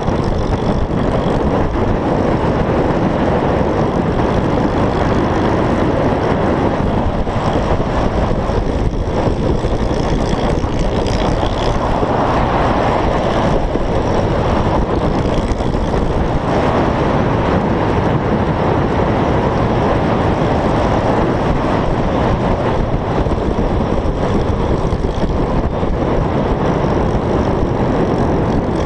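Motor scooter riding at speed: a steady, loud rush of wind buffeting the microphone, with the scooter's engine running underneath.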